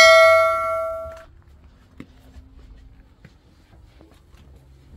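A bell-like metallic ring dying away over about a second, followed by faint clicks and a low hum.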